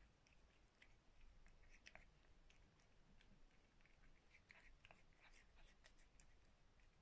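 Domestic cat eating soft flaked fish from a ceramic bowl: faint, irregular chewing clicks.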